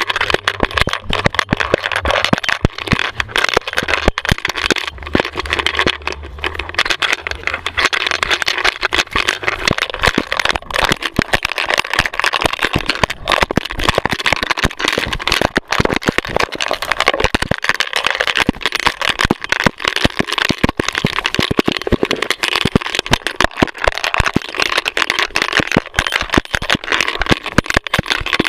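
A dog-mounted GoPro jostled hard as the dog runs: constant, irregular rattling and rubbing of the camera housing and harness against the dog, with dense clicks throughout.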